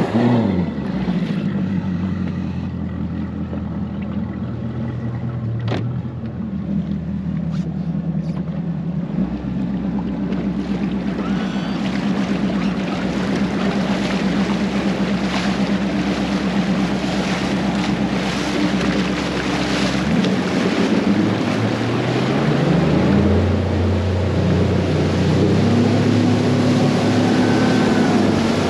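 A fishing boat's outboard motor running, over water and wind noise. It revs briefly at the start, settles to a steady speed, then speeds up about 21 seconds in and holds a higher pitch.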